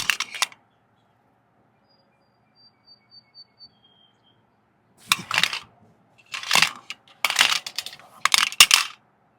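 A sharp metallic click, then four bursts of clicking and rattling from small hard objects being handled, in the second half. Faint bird chirps come in between.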